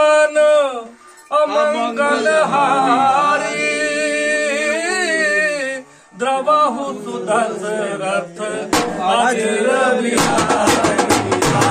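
A man sings a chant-like song unaccompanied, in long held phrases. About ten seconds in, a rope-laced barrel drum played with a stick comes in with fast, even beats.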